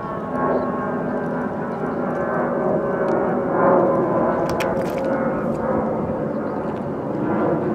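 A steady engine drone with several held pitches, swelling a little about three to four seconds in, with a few sharp clicks just before the five-second mark.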